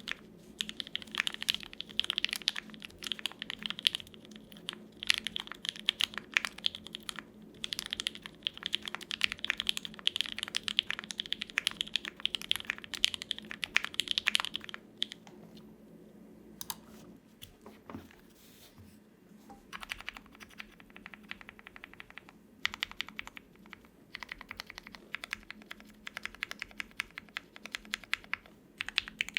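Fast typing on a custom Tofu65 mechanical keyboard with Hippo linear switches, GMK double-shot ABS keycaps, an O-ring plate mod and a silicone-filled case. Dense runs of keystrokes slow to a few scattered presses about halfway through, then pick up again.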